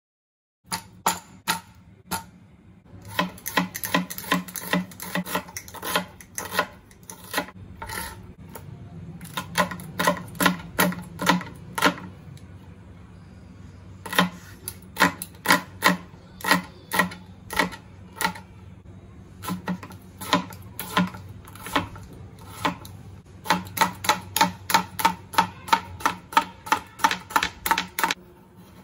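Knife chopping crisp vegetables (green bell pepper, cucumber) on a plastic cutting board: quick runs of sharp taps of the blade striking the board, with short pauses between runs.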